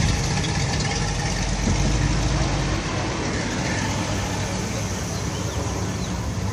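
Old car engine running at low speed as a convertible drives slowly past close by, loudest in the first few seconds and easing off after that.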